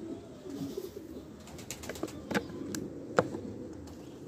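Domestic pigeons cooing steadily in their loft, with a few sharp clicks and knocks over it, the loudest a little past three seconds in.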